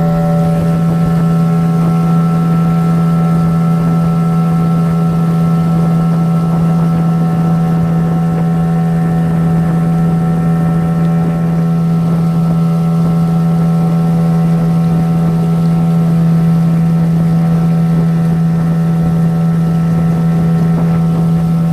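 Small boat's outboard motor running at a steady speed, one unchanging engine drone.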